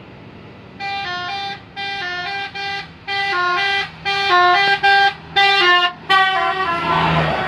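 Bus telolet horn, a multi-tone musical horn, playing its stepping melody in several short repeated phrases, starting about a second in. A rushing noise swells near the end.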